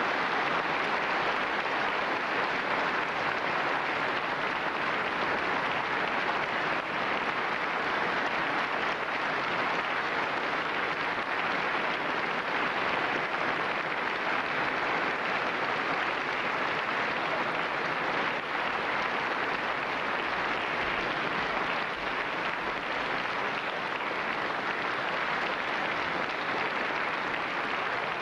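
Audience applauding steadily and without pause, a dense even clatter of many hands clapping.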